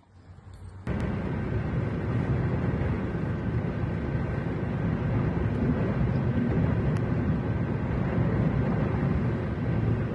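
Strong storm wind rumbling steadily, buffeting the microphone, with the noise jumping up sharply about a second in.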